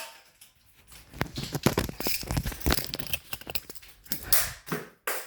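Metal handcuffs being worked at and broken: a quick run of clicks and rattles, then two short rasping bursts near the end.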